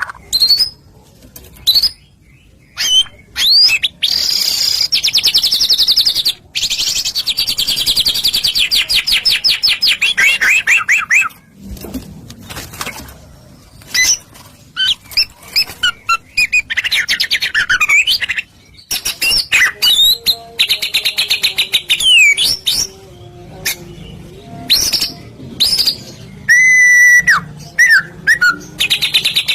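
Songbird singing in loud bursts: long, very fast high trills, then whistled notes that slide down and sharp chirps, with short pauses between phrases. It is a pancingan, a recorded song used to set caged songbirds singing back.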